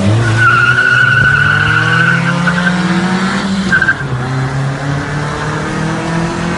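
A Nissan Tsuru and a Nissan March launching from a standing start, their engines revving up hard while a tyre squeals for the first couple of seconds. About four seconds in the engine pitch drops with a short squeal, then climbs again.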